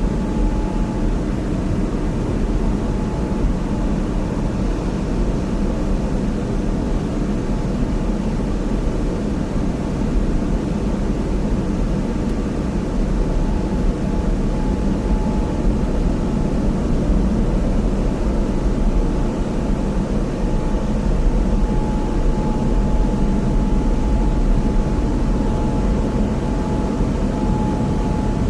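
Automatic car wash heard from inside the car: a steady, dense rush of water and wash machinery with a heavy low rumble, and a faint steady whine that fades out for a while midway and returns.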